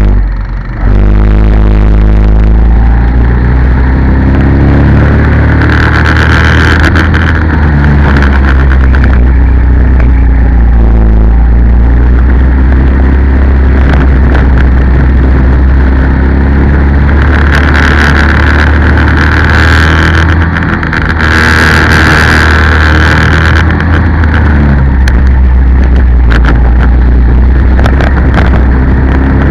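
Go-kart engine heard close up from onboard, loud and running hard, its pitch rising and falling as the kart accelerates out of corners and lifts for them, with a brief dip about a second in.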